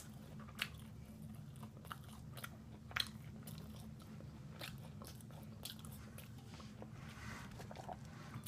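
A person chewing crispy fried chicken with a full mouth, with sharp crunches now and then.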